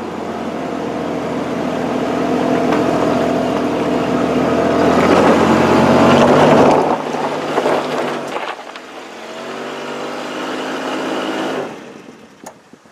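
A four-wheel-drive vehicle's engine labouring up a rocky dirt track in two-wheel drive. It grows louder to about seven seconds in, eases off, runs again, then drops away near the end. The vehicle is reaching the limit of what it can climb in two-wheel drive.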